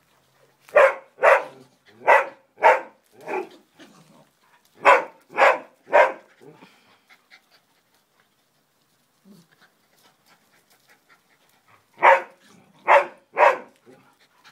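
Small dogs barking sharply in short runs while they play: five quick barks at the start, three more about five seconds in, a pause, then three more near the end.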